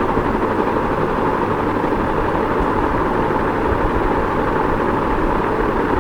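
Ceiling fan running steadily: a constant whooshing hum of moving air, with a low rumble underneath.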